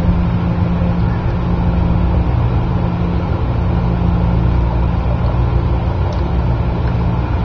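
A steady low hum of a running machine, unchanging throughout.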